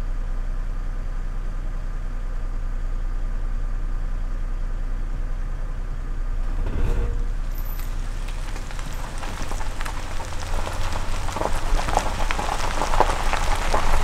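Vehicle engine idling with a steady low hum, then pulling away about seven seconds in; a crackling patter from the tyres rolling over the gravel road grows louder as it drives on.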